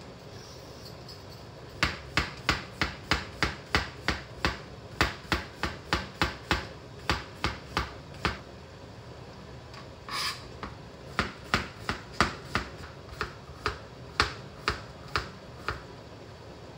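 Kitchen knife slicing a cucumber thinly on a cutting board: a steady run of crisp chops, about three a second. They pause about eight seconds in for one short scrape, then resume.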